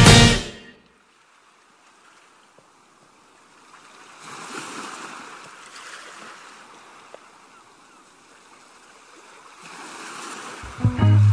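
Faint ocean surf: a soft wash of waves that swells about four seconds in and again near the end. Background music fades out at the start and guitar music comes back in just before the end.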